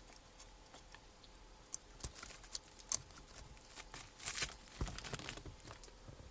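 Faint, scattered clicks, taps and a brief rustle of hands handling small equipment, with no steady sound beneath.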